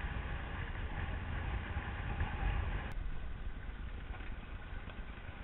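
Wind buffeting the microphone over the rush of water past the hull of a Cross 18 trimaran under way, a steady low rumble with a hiss above it. The sound changes abruptly about three seconds in.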